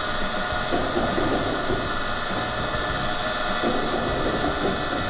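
Tokuju V-type blender running, its stainless V-shaped vessel turning on the drive: a steady mechanical hum with a constant high whine, and a rougher swell that comes back about every three seconds.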